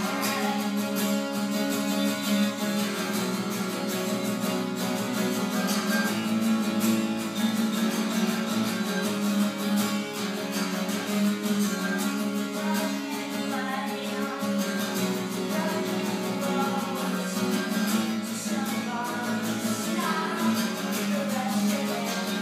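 Acoustic guitar played through a song, with a woman singing at times, more in the second half.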